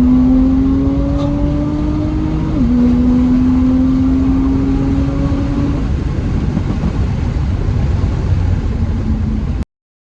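BMW M3 F80's S55 twin-turbo straight-six, with an equal-length exhaust, accelerating under full throttle. The engine note climbs, drops at a quick upshift about two and a half seconds in, then climbs again. The note fades after about six seconds, and the sound cuts off suddenly just before the end.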